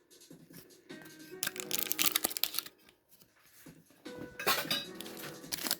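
Soft background music, with two bursts of crinkly handling noise, about a second and a half in and again around four seconds in, from a Pokémon card mini tin and its booster pack being opened.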